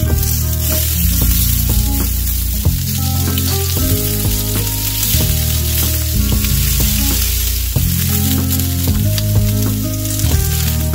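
Chicken gizzards sizzling steadily as they fry in a flat pan, turned now and then with metal tongs, under background music with held notes and bass.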